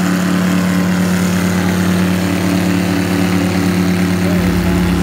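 Airboat's engine and open air propeller running as it speeds across the water: a loud, steady drone with a fixed hum. A deeper low rumble joins about four seconds in.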